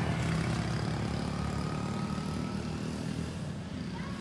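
Honda Freed's 1.5-litre four-cylinder petrol engine idling, a steady low hum.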